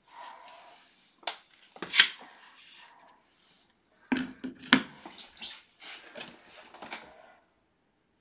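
Pet food bowls being set down on a wooden floor: a few sharp clinks and knocks of ceramic and stainless-steel bowls, the loudest about two seconds in, with softer handling noise between.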